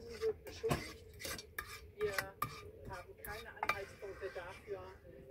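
A metal utensil scraping and clinking against the inside of a cooking pot: an irregular run of short squeaky scrapes and clicks, a few each second.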